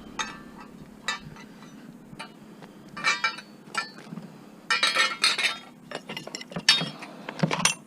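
Glass and small hard junk clinking and knocking together in irregular clusters of sharp clinks as it is picked through and moved by hand.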